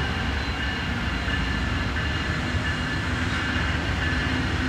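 Amtrak GE P42DC diesel locomotives standing at the station with their engines running, a steady low rumble with a faint constant hum.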